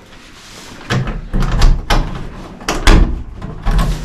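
A run of knocks and deep thuds, about eight of them close together from about a second in, of the kind made by doors, drawers or things being handled in a room.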